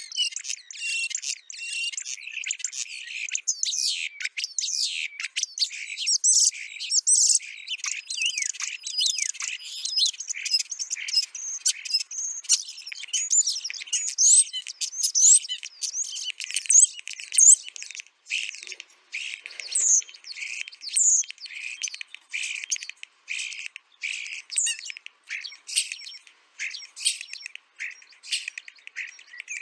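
A flock of starlings singing: a rapid, continuous jumble of high chirps, whistles and clicks, easing briefly a little past the middle.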